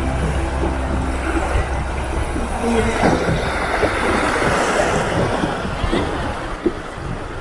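River rapids rushing and splashing around a wooden river boat as it runs downstream, a steady rushing noise. Background music fades out in the first few seconds.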